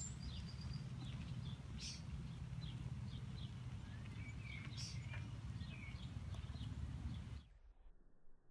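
Outdoor ambience: a steady low rumble with small birds giving short, repeated chirps. The sound cuts off abruptly near the end.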